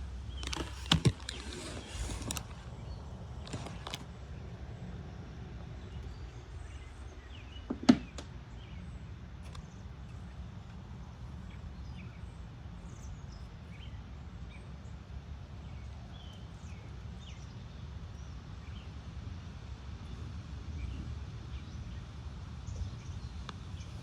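Strong wind buffeting the microphone as a steady low rumble, with a few loud noisy gusts or knocks in the first couple of seconds and one sharp knock about eight seconds in. Faint short chirps sound through it.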